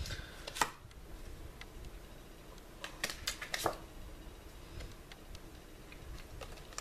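Oracle cards being handled and flicked through: scattered sharp card clicks and snaps, one loud one about half a second in and a quick cluster around three to four seconds in.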